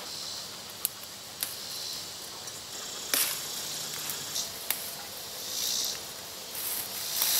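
Rustling of sumac foliage and stems being handled, with several short sharp snaps or clicks as red sumac berry clusters are broken off and dropped into a metal colander.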